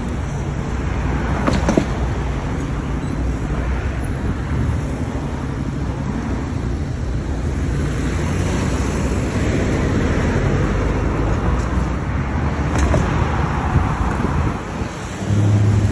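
Road traffic at a busy intersection: a steady rumble of car engines and tyres as vehicles pass, with two brief clicks, one near the start and one near the end.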